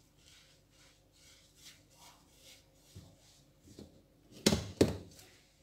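A hand rubbing and squeezing a crumbly mixture of desiccated coconut and condensed milk in a ceramic plate: soft, repeated rubbing strokes, then two louder thumps close together near the end.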